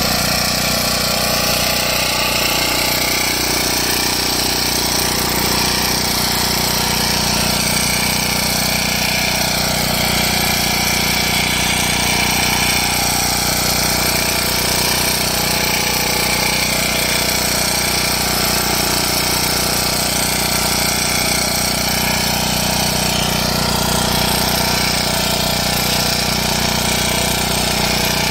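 Engine of a 9 HP agri cart power weeder running at a steady speed, a loud, even mechanical drone.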